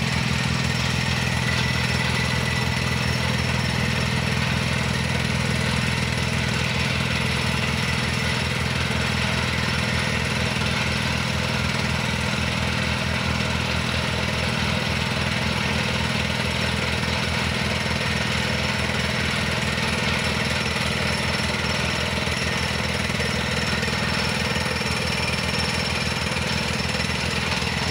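Liugong excavators' rock-drill attachments drilling into rock, with the excavators' diesel engines running: a steady, unbroken mechanical din with a rapid hammering underneath.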